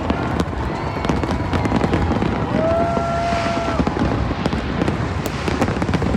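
Fireworks exploding continuously, a dense crackling over a steady low rumble of bursts. A single held high tone sounds for about a second near the middle.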